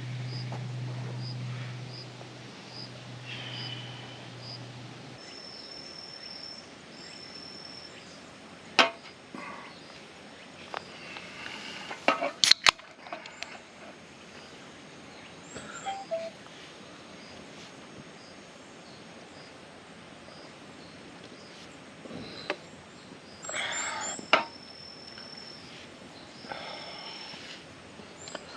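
Scattered sharp knocks and clinks of small items being handled. Behind them, insects chirp in short, regular pulses, with a thin high trill in places.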